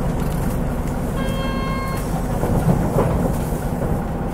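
Steady low rumble of a Mitsubishi Fuso KL-MP37JK city bus's turbocharged 6M70 diesel engine and running gear, heard from inside the cabin. About a second in, a steady electronic beep sounds for under a second.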